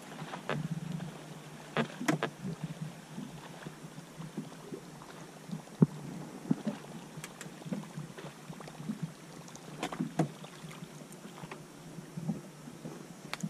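Small waves lapping against the hull of a small fishing boat, with scattered irregular knocks and clicks.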